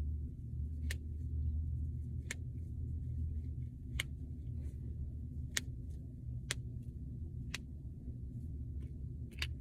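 Finger knuckles being cracked: about seven sharp single pops, spaced unevenly a second or more apart, over a steady low hum.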